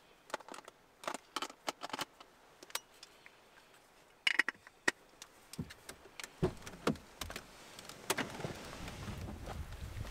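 Clicks and small rattles of a camera and lens being handled inside a car, then the car door opening about six seconds in, after which wind and rain noise grows steadily louder.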